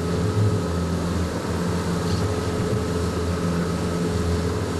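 Fishing boat's engine running steadily with the boat underway: a constant low drone with a steady hum above it.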